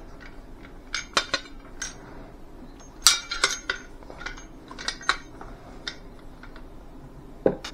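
Metal clicks and clinks of a collapsible survival shovel being handled, its folding metal blade and joint knocking against the handle, with a cluster of sharper clinks about three seconds in.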